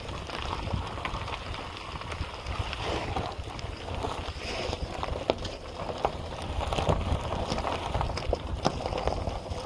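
Wind buffeting the microphone: an uneven, gusty low rumble, with scattered light clicks and rustles over it.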